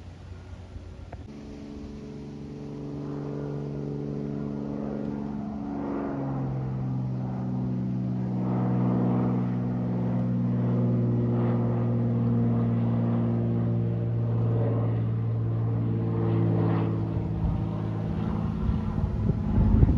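Small propeller plane flying low overhead: a steady engine-and-propeller drone that grows steadily louder, its pitch stepping down about six seconds in. A brief low rumble comes near the end.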